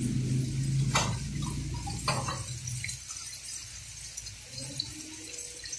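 Tomato sauce of a lobster stew simmering in a metal pan on the stove, with a faint liquid hiss, two sharp knocks about a second apart, and a low hum that fades out about three seconds in.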